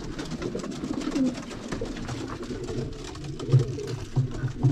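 Domestic pigeons cooing in a loft: low, rolling coos that come more strongly in the second half, with scattered light clicks.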